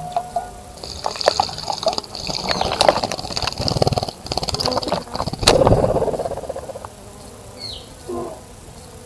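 Small birds bathing in a bird bath: bursts of splashing and wing-fluttering in the water, the strongest two flurries in the middle, with a brief high chirp near the end.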